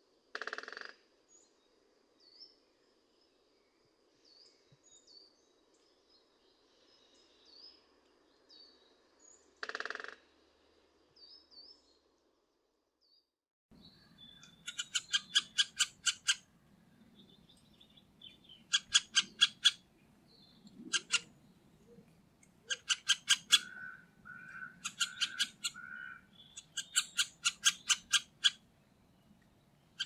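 Middle spotted woodpecker pecking at a wooden feeder: quick sharp taps, about seven a second, in bursts of one to two seconds through the second half. Before that there are faint short high chirps and two brief knocks.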